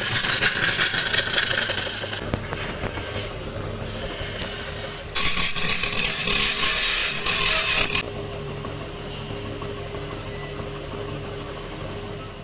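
Wood lathe spinning a mahogany blank while a hand-held turning chisel cuts into it: a loud, rough scraping cut for about the first two seconds and again from about five to eight seconds, which starts and stops suddenly. Between the cuts the lathe motor hums steadily.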